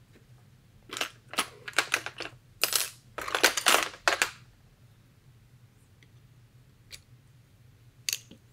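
Small metal hand tools and air rifle parts being handled on a tabletop: a run of clinks and short rattles for about three seconds, then a few single clicks.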